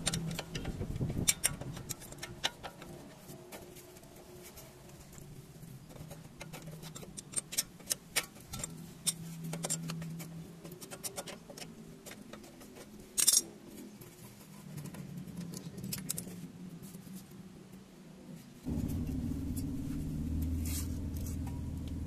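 Scattered metallic clicks and clinks of an adjustable wrench and brake caliper parts being handled, with one sharp clink about midway. A steady low hum starts suddenly near the end.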